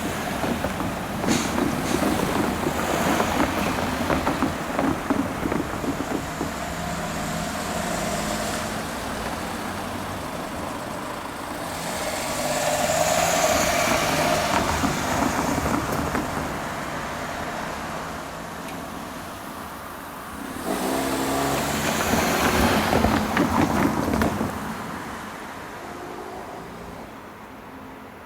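Road vehicles, cars and trucks, driving past over a level crossing one after another, with the loudest passes about halfway through and again near the end before fading.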